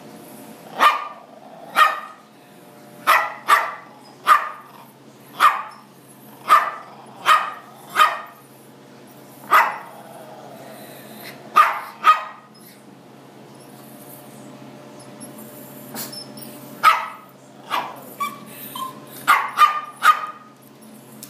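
A Chihuahua mix barking in short, sharp barks, about one a second, with a pause of a few seconds past the middle, over a steady low hum.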